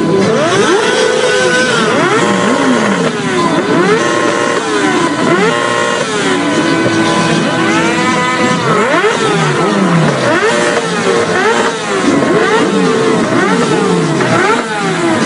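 Several vehicle engines revving over and over, overlapping one another; each rev climbs in pitch, holds briefly, then drops back.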